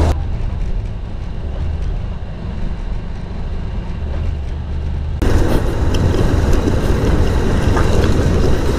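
Honda CB200X's single-cylinder engine running as the motorcycle rides off, under heavy wind rumble on a bike-mounted camera's microphone. The sound turns duller just after the start, then brighter and louder again about five seconds in.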